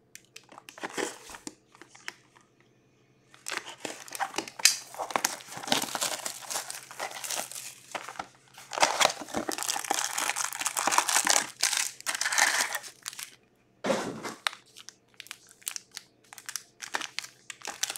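Clear plastic shrink-wrap crinkling and tearing as it is peeled off a box of Upper Deck Ice hockey cards. Then come lighter short rustles and small taps as the foil card packs are handled and set down.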